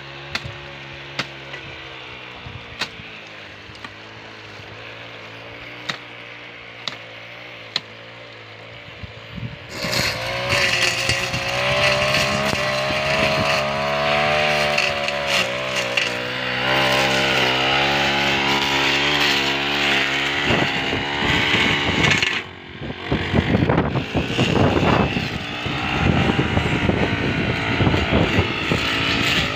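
Backpack brush cutter's two-stroke engine running, at first quieter and steady under a few sharp clicks, then from about ten seconds in louder, its pitch rising and falling as it cuts. Near the end the sound breaks into dense rapid strikes as the blade chews through dry grass and stalks.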